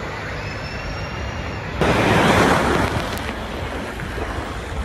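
A motorboat running over open water, its engine rumbling under the rush of water and wind, with a louder surge of rushing noise about two seconds in, lasting about a second.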